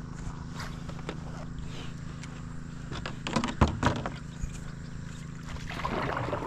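Boat motor running with a steady low hum, with a few sharp knocks a little past halfway through.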